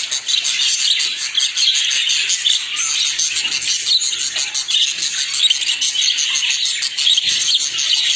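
Budgerigars chattering and warbling: a dense, unbroken run of fast, high chirps.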